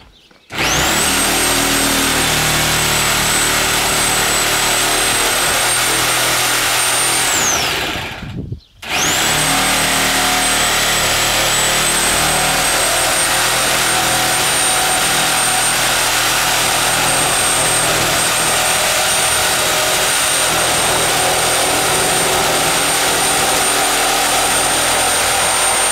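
A handheld power tool held up against old roof framing, running at full speed: it spins up to a steady high whine over a loud hiss, winds down and stops after about seven seconds, then starts again a moment later and runs steadily on.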